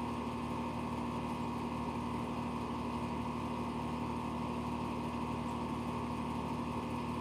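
Steady mechanical hum with one constant low tone, a machine running without change.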